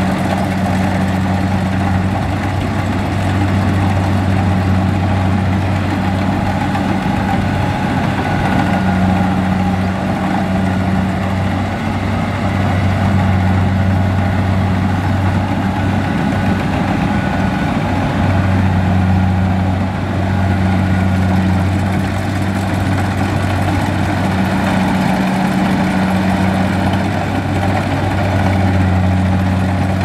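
Kubota DC70 rice combine harvester's diesel engine running steadily under load while the machine cuts rice in deep mud. A low engine hum swells and fades every few seconds over the constant machine noise.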